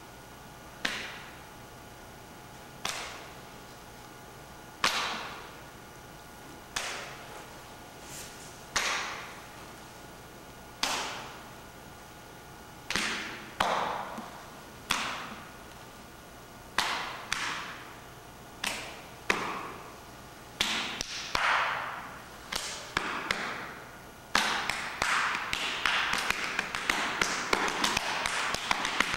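Body percussion: open-hand slaps on the chest and body, each ringing briefly off the hard room. Single slaps come about every two seconds, then grow more frequent, and in the last five seconds or so they turn into a dense, continuous flurry of slapping.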